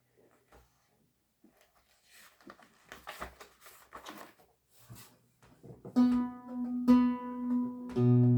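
Lute playing: after a quiet start with soft scattered clicks and rustles, plucked notes begin about six seconds in and ring on, with a deeper bass note joining near the end.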